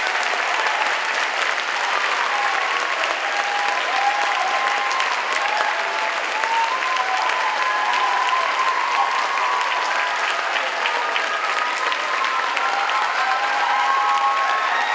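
Concert audience applauding steadily, with cheering voices calling out over the clapping.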